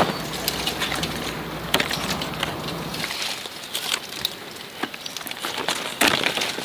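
Leaves rustling and small stems cracking as a sour ear (tai chua) fruit is twisted off its branch by hand: a scatter of small crackles and snaps, loudest about six seconds in.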